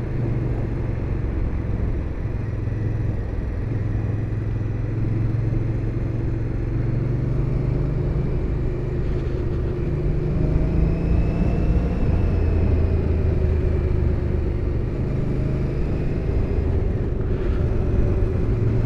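Indian Scout Bobber's liquid-cooled V-twin engine running steadily under way, with a low, even rumble whose note shifts around the middle.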